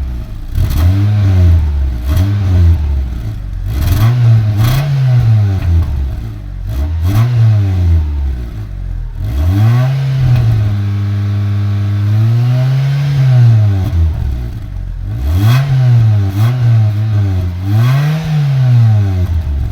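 2003 Mitsubishi Lancer ES four-cylinder engine being revved in repeated throttle blips, the pitch rising and falling about a dozen times, with two longer held revs in the middle. The engine has fresh oil and a new oil filter after a flush, and it revs cleanly with no backfire when the throttle is released.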